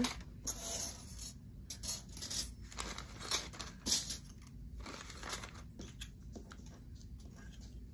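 Small metal filigree jewelry findings being picked up and set down one at a time as they are counted: light clicks and rustles at irregular intervals, thinning out after about four seconds.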